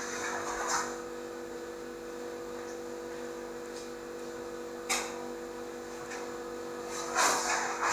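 Steady hum of running machinery, with several steady tones, broken by two brief clicks (about 1 s in and about 5 s in) and a short rustle near the end.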